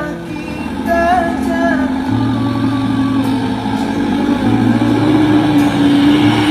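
Diesel engine of a loaded Mitsubishi Fuso truck running as the truck drives slowly past, growing louder toward the end, under background music with singing.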